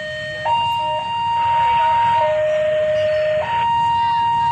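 Railway level-crossing warning alarm sounding: an electronic two-tone signal alternating between a high and a low tone, each held for about a second or more, with a low rumble underneath.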